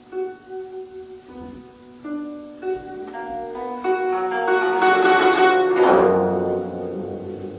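Instrumental background music with plucked strings, growing fuller and louder from about four seconds in, then easing off near the end.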